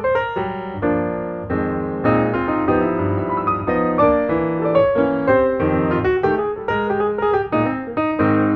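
Background piano music: a steady run of quick notes and chords.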